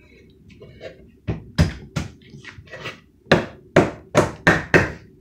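About eight sharp knocks against a wooden kitchen base cabinet, a few single ones and then a quicker run of them after about three seconds in, as a vent enclosure is worked into the hole cut in the cabinet.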